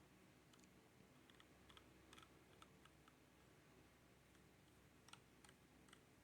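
Faint, irregular clicks from a mechanical keyboard's keys, about a dozen in all, bunched in the first three seconds with a few more near the end.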